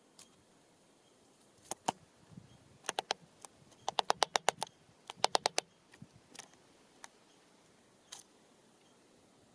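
A bird pecking at a caged seed block at a feeder: sharp, hard taps, scattered at first, then two quick runs of five or six taps each in the middle.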